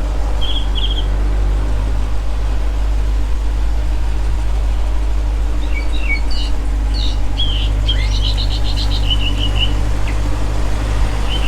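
Steady low rumble of an idling vehicle engine, with small birds chirping in short trills about half a second in and again several times in the second half.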